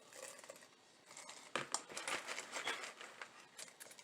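Vase filler being poured into a small heart-shaped gumball machine: an irregular run of crinkling and small clicks.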